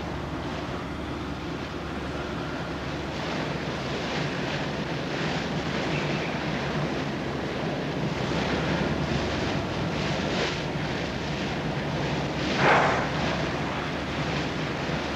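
Steady rush of wind and sea against a ship under way, with a low hum underneath. A short, louder rush comes near the end.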